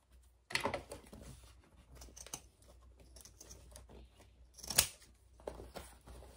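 Scissors snipping through the layered fabric seam allowance of a small bag, several cuts with rustling of the fabric between them; the sharpest snip comes near the end.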